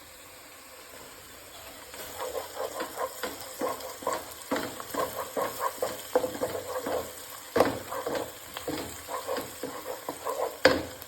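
A spoon stirring in a cooking pot: quick repeated scrapes and clinks starting about two seconds in, with two louder knocks against the pot, over a low steady sizzle.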